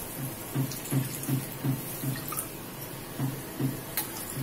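Water poured from a steel mug into a metal kadai of fried spice paste, splashing into the pan, with a sharp clink of metal about four seconds in. Under it, a low throb repeats about three times a second.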